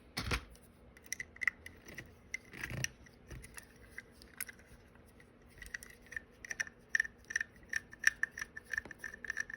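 Small plastic and metal parts of a diecast model truck clicking and tapping as they are handled and worked apart by hand, with a quick run of sharp little clicks near the end.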